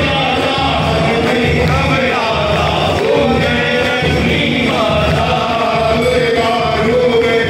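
Devotional aarti hymn: several voices singing together over music.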